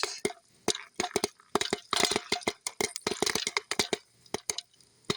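Campfire of split wood and fatwood crackling, with irregular sharp cracks and pops several times a second and short lulls between.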